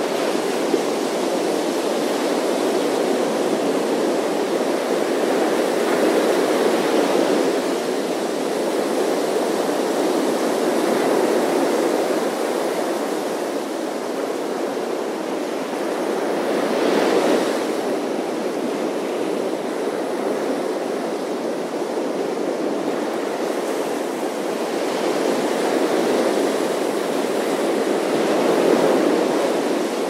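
Ocean surf breaking on a sandy beach: a continuous wash of water that swells as each wave crashes and runs up the shore, the strongest crash a little past halfway.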